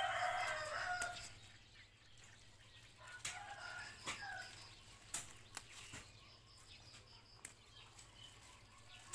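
Chickens: a rooster crowing, its call ending about a second in, followed by shorter calls around three to four seconds in.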